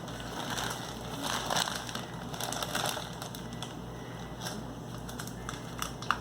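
Crunching and crackling of snack food being handled and eaten close to the microphone, with scattered sharp clicks.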